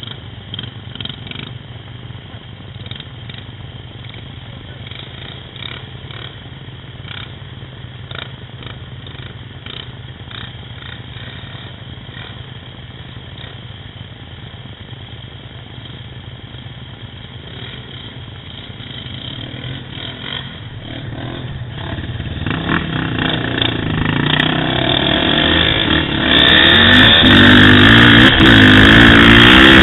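ATV engine running low and steady with scattered light clicks, then revving up and pulling away, rising in pitch and getting much louder over the last several seconds.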